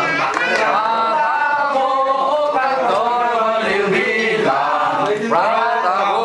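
A small group of people singing a song together, with men's voices prominent and notes held and slid between.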